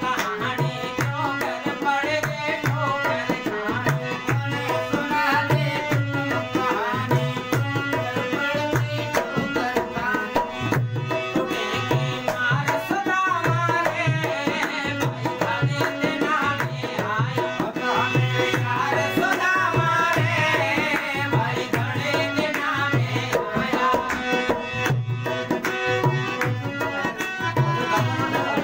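Hindi devotional bhajan: a man singing to his own harmonium accompaniment, with a hand drum keeping a steady, even beat underneath.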